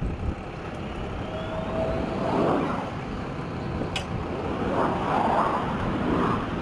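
Wind buffeting the microphone: a loud, uneven rumble that swells and eases, with a sharp click about four seconds in.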